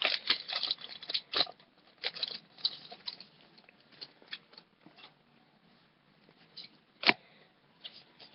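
Foil Pokémon booster pack wrapper being crinkled and torn open by hand, a dense run of crackles at first, then scattered crinkles and a sharper click about seven seconds in.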